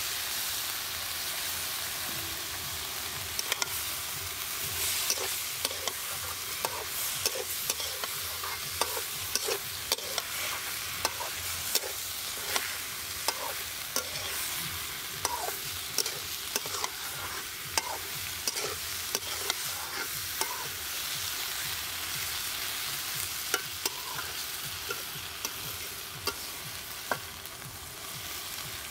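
Chopped taro stolons (kochur loti) sizzling as they fry in oil in a large metal karahi, with a spatula scraping and clacking against the pan as they are stirred. The steady sizzle carries on throughout, and the spatula clacks come over and over from a few seconds in until near the end.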